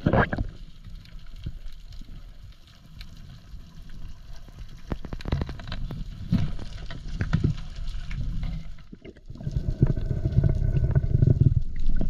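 Water sloshing and gurgling, with scattered sharp clicks and knocks around the middle, then heavier, louder low rushing water from about nine and a half seconds in.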